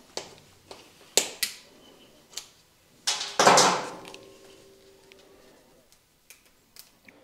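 Plastic push-pin fasteners being pried loose and pulled out by gloved hands: a string of sharp clicks and snaps, with a louder clatter about three seconds in that rings on briefly.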